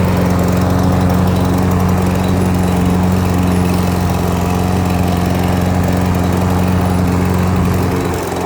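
Troy-Bilt push mower's Briggs & Stratton 550EX engine running steadily just after a cold pull-start, a steady low drone that gets a little quieter near the end.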